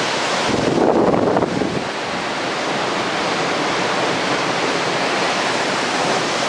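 Waterfall rushing, a steady loud roar of falling water, with wind buffeting the microphone briefly about a second in.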